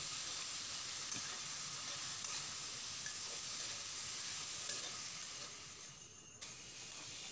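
Oyster mushrooms frying with onion and tomato in a pan, sizzling steadily with light scrapes as they are stirred with a metal spatula; freshly added, they are cooking down until they release their water. The sizzle fades near the end and cuts back in abruptly.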